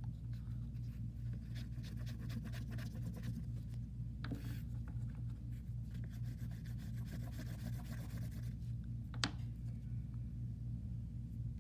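Oil pastel scratching on paper in quick repeated strokes, which stop about eight seconds in; a single sharp tap follows a moment later. A steady low hum runs underneath.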